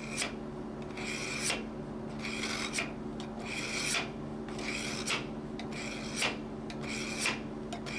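Dull Chicago Cutlery knife blade drawn repeatedly through the spring-loaded blades of a Vulkanus pull-through sharpener: about seven rasping scrapes, roughly one a second, each ending in a sharper scrape as the edge leaves the blades. It is the sound of steel being shaved off to put an edge back on a dull knife.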